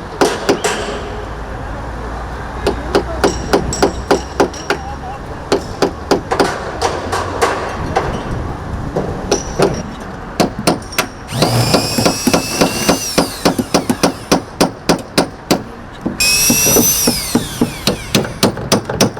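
Construction site: repeated hammer blows in runs of quick strikes. Twice, about halfway through and again near the end, a power tool whines briefly, its pitch rising and then falling.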